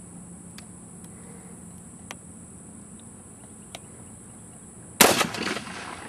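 An AR-15 carbine fires about five seconds in: a sharp, loud crack that rings off for about half a second. It is a shot at 7 yards to set a baseline zero.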